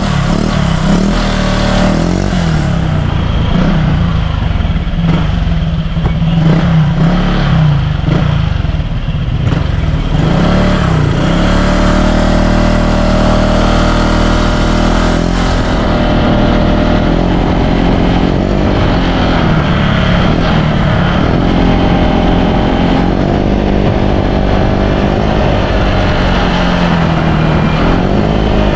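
Honda Click scooter's single-cylinder engine running through a Sun Racing Silent Killer aftermarket exhaust, ridden along with its pitch rising and falling as the throttle opens and eases off.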